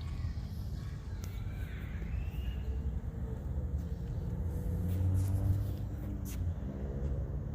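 Car being driven: a steady low rumble of engine and road noise, with the engine's tone rising and falling a little.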